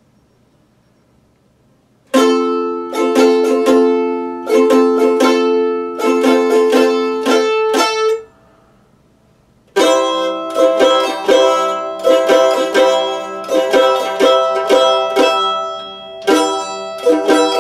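Mandolin strummed in chords. After about two seconds of quiet, a rhythmic run of strums stops briefly about eight seconds in, then strumming resumes on a different chord.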